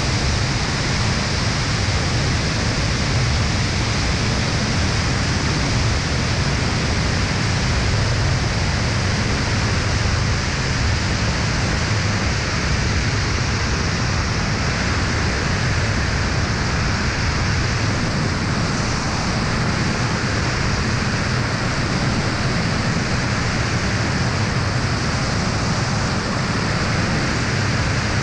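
Steady rush of wind over a camera mounted outside an Aeroprakt A22 light aircraft in flight, with the low drone of its engine and propeller underneath. It stays even throughout, with no changes in power.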